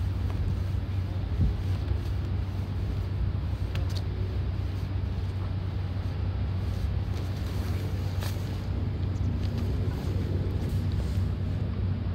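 Steady low mechanical rumble with a constant deep hum, broken by a few faint ticks.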